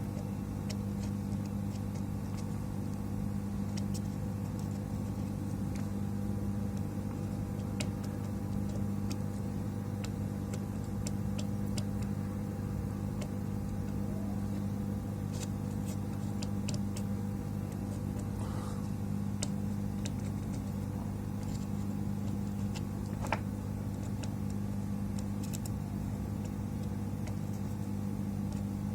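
Steady low hum of running electronics-bench equipment, likely a hot-air rework station or fume extractor, with scattered light clicks of tools working on the circuit board.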